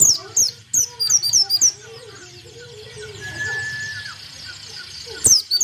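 Pleci (white-eye) singing: quick strings of very high, sharply falling chirps, one burst in the first second and a half and another just before the end.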